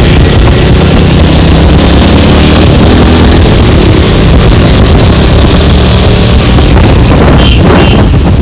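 Motorcycle engines running steadily on the move, riding side by side along a road, with wind noise over the microphone.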